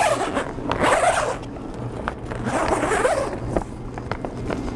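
Heavy-duty door zipper of a Sun Hut Blackout fabric grow tent being unzipped in two long pulls, followed by the door flap rustling as it is peeled back.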